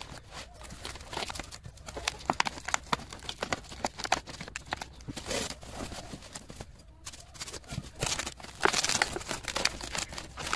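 Foam packing strips and a plastic-wrapped battery pack being handled and pushed into a box: irregular rustling and crinkling with small knocks, busiest near the end.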